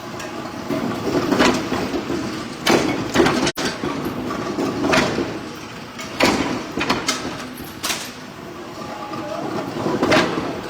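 Irregularly spaced metal knocks and clanks, about eight sharp strikes a second or two apart, over a steady workshop noise, typical of forging work on heavy bolts.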